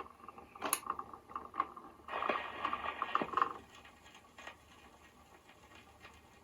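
Vintage Trav-ler record player's automatic changer cycling at the end of a record: scattered mechanical clicks and a short scraping rustle about two seconds in, then the mechanism goes quiet.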